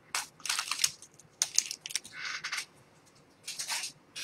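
A trading-card pack wrapper being torn open and crinkled, in several short, crisp bursts of handling noise.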